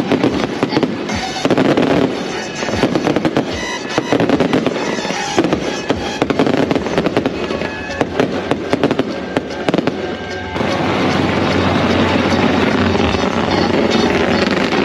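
Daytime coloured-smoke fireworks going off in rapid crackling and popping volleys. About ten and a half seconds in, the sound turns into a louder, steadier rushing crackle as jets of smoke shoot up.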